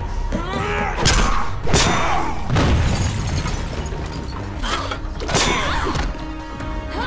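Animated superhero fight sound effects: a series of heavy impacts and crashes, about five spread over several seconds, with metallic mechanical sounds and a music score underneath.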